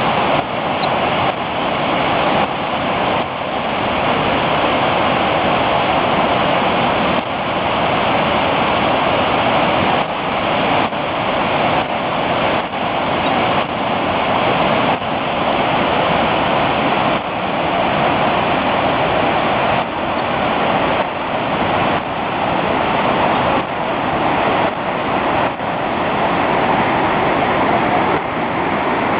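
Steady, dense rushing of the American Falls at Niagara Falls, a great volume of water crashing onto the rocks below.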